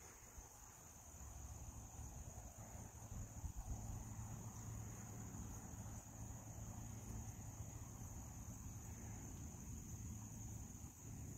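Faint, steady high-pitched chirring of crickets, unbroken throughout.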